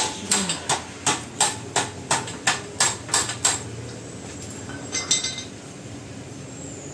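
Hammer blows on an office chair's metal seat mechanism and gas-lift cylinder, about three sharp strikes a second, stopping about three and a half seconds in. A few lighter metallic clicks follow a little later.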